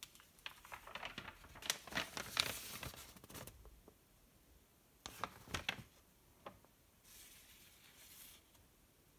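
Large paper instruction sheet being picked up and folded, crinkling and rustling for the first few seconds. Then a few short crackles and a soft brushing rustle as the folded sheet is held and fingered.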